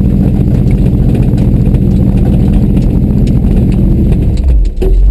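GMC tow truck's engine running loud and steady, with a fast pulsing note. It drops off a little over four seconds in.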